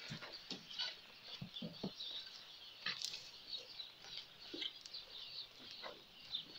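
Faint farmyard animal sounds: scattered short chirps of small birds and brief low animal noises from the goat pen.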